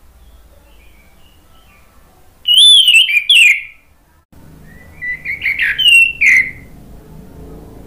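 Orange-headed thrush singing: two loud phrases of rich, gliding whistled notes, the first about two and a half seconds in and the second about five seconds in, with faint soft twittering before them.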